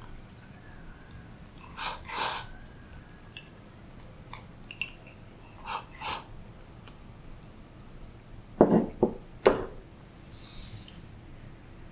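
Eating sounds from a beef rice bowl eaten with chopsticks: food shoveled into the mouth from a ceramic bowl, chewing, and small clicks of chopsticks against the bowl. A few sharp, louder knocks come about three-quarters of the way through.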